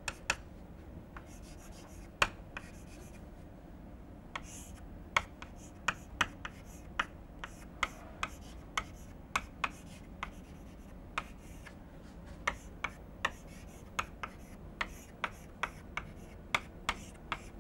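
Chalk writing on a blackboard: sharp, irregular taps of the chalk stick with light scratching between strokes, often two or three taps a second, over a faint steady low hum.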